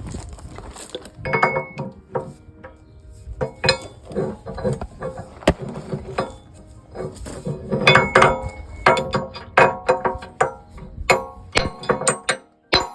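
Steel clinking and ringing hammer strikes on Caterpillar backhoe bucket teeth and retaining pins as the teeth are fitted and driven home. The irregular taps come quickest about eight to twelve seconds in.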